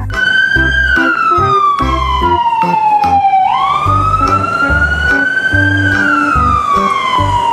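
Ambulance wail siren sweeping slowly down in pitch. It jumps up and climbs again about three and a half seconds in, then falls once more. Background music with a steady beat plays underneath.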